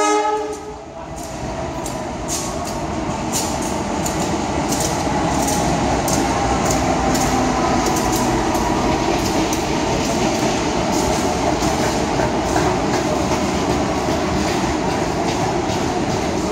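Diesel-hauled passenger train passing through a station: a horn blast ends about half a second in, then the rumble of the locomotive and coaches rolling by builds over the first few seconds and holds steady, with wheels clicking over the rail joints.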